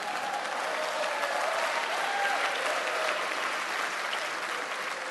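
Large audience in a hall applauding, a dense steady clapping that holds and starts to die away near the end.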